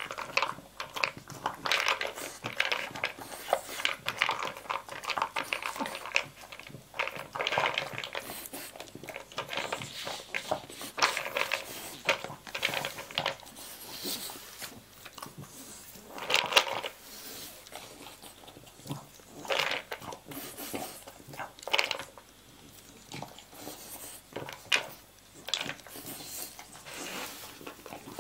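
French bulldog eating dry kibble from a plastic slow-feeder bowl: irregular crunching and pellets clattering against the plastic as it noses them out from between the bowl's raised knobs. The clatter is busy in the first half, then comes in more scattered bursts.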